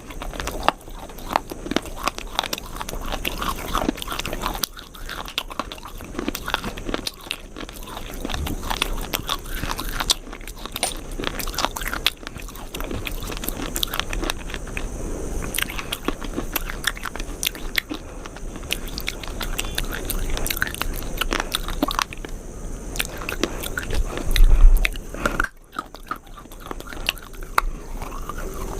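Close-miked biting and chewing of something hard and crunchy: a steady run of sharp crunches, loudest about 24 seconds in.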